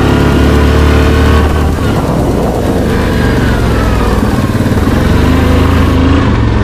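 Yamaha Grizzly 700 ATV's single-cylinder engine running on the trail, its pitch easing up and down with the throttle.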